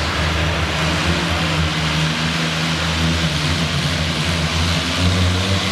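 International Harvester Farmall pulling tractor's engine running steadily at low speed while hitched to the pulling sled, before the pull begins.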